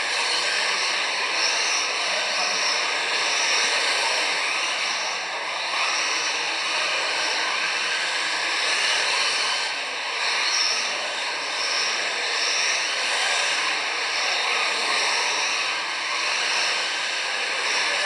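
Several electric 1:10 scale RC touring cars racing on a carpet track: a high motor whine and tyre hiss that swell and fade as the cars pass, every couple of seconds.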